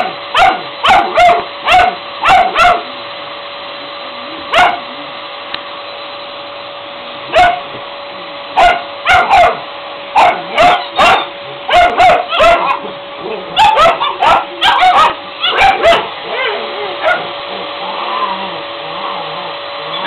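Airedale terrier puppies barking in short, sharp yaps at a running vacuum cleaner, whose steady hum runs under them. The barking comes in bursts, pauses for a few seconds near the start, then picks up again and thins into a few softer whines near the end.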